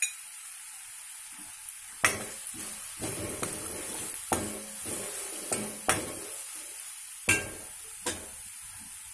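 A spoon stirring and scraping thick onion-tomato masala, with chilli powder just added, around an aluminium kadai. It knocks sharply against the pan about five times, over a steady light sizzle of frying oil.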